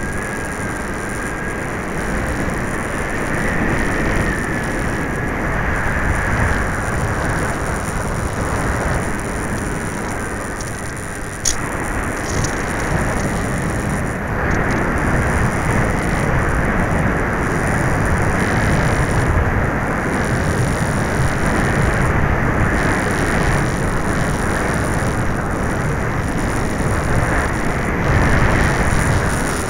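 Onboard recording of an FPV-Raptor 1600 foam model plane in flight: a steady rush of wind buffeting the camera's microphone together with the electric motor and propeller, the propeller slightly out of balance. A faint whine runs through the first few seconds, and there is a single sharp click about eleven seconds in.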